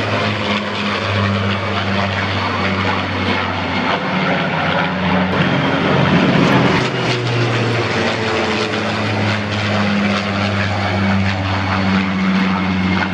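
Aircraft engine noise from a de Havilland DH-115 Vampire jet flying by together with a propeller-driven warbird: a steady engine drone with a low hum underneath, swelling slightly midway.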